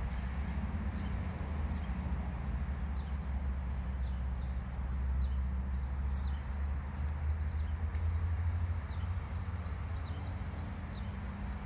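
Outdoor ambience: a steady low rumble with faint high chirps and a short run of ticks near the middle.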